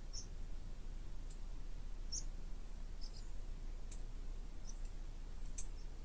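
Summer woodland ambience heard from inside a tent: a low steady background rumble, scattered brief high chirps and a few sharp ticks.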